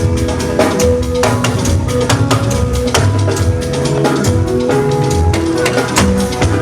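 Instrumental music with a drum-kit beat, bass notes and held higher notes, with no singing.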